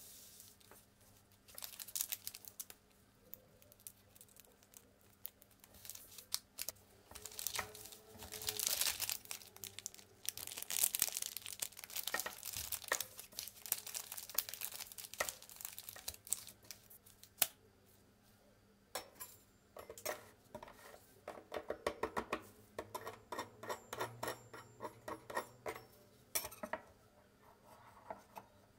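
Plastic wrappers of Ülker Dido chocolate wafer bars crinkling and tearing as the bars are unwrapped one after another, in irregular bursts of crackling, with a denser run of quick crackles in the second half.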